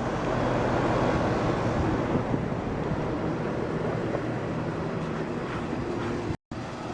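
Weather King central air conditioner condenser unit running with a steady hum and fan rush. Its condenser fan is off balance and the unit is shaking. The sound cuts out briefly near the end.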